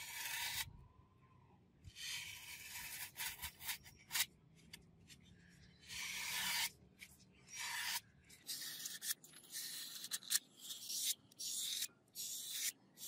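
Knife blade slicing through a block of floral foam in a series of scraping strokes, the strokes coming shorter and quicker after about eight seconds.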